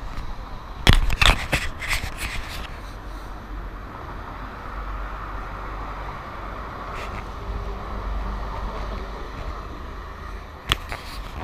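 Handling noise from a handheld action camera: fingers rubbing and knocking on the camera about one to two seconds in and again near the end. Under it, steady city street traffic noise with a low rumble.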